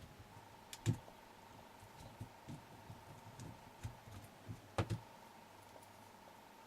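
Scattered small clicks and knocks of the RC car's rear hub parts and bearing being handled and taken apart, with two louder knocks about a second in and near five seconds. A faint steady hum runs underneath.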